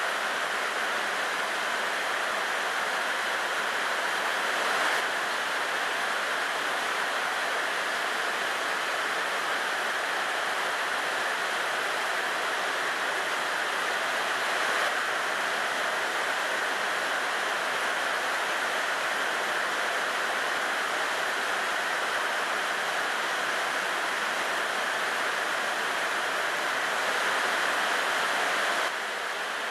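Steady rain falling, an even hiss that steps slightly louder or softer a few times.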